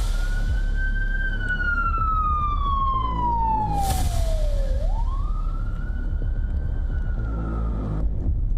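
Emergency vehicle siren wailing: one long slow fall in pitch, then a quick rise about five seconds in, held until it cuts off near the end. A heavy low rumble runs under it, with a single sharp click partway through.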